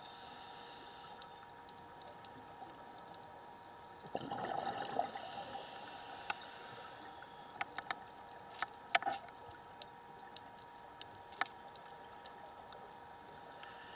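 Scuba diver's regulator underwater: an exhaled rush of bubbles starting about four seconds in and fading over a few seconds, followed by scattered sharp clicks, over a faint steady hum.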